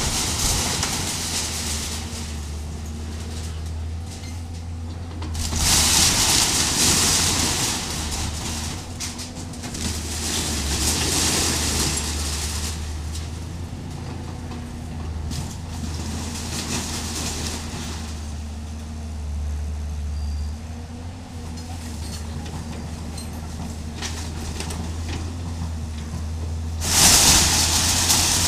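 Hydraulic excavator's diesel engine running steadily while its bucket tears down a wooden house with a corrugated metal roof. Several spells of crunching timber and scraping metal sheeting come over the engine, the loudest about six seconds in and near the end.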